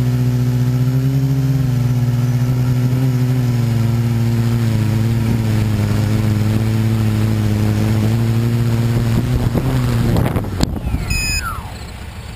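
Vehicle engine running steadily at an even pitch, then shutting off about ten seconds in, followed by a sharp click and a short falling whine as it winds down.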